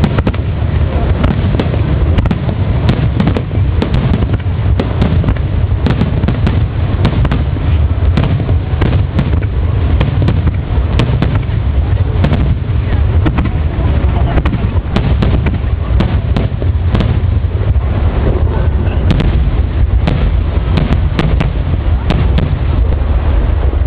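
Large fireworks display going off continuously: many sharp cracks and pops, several a second, over an unbroken deep rumble of shell bursts.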